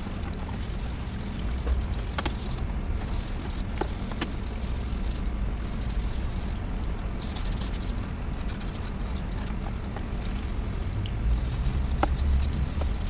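Hand scrubbing of wet, soapy plastic motorcycle body panels, with a few light plastic knocks, over a steady low rumble.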